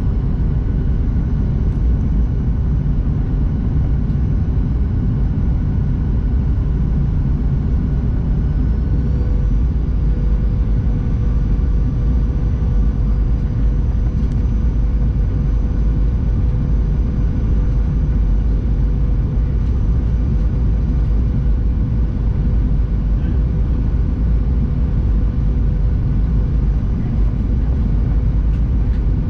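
Steady low rumble inside the passenger cabin of a Boeing 737-800, the jet's engine and airflow noise. A steady mid-pitched hum joins about nine seconds in.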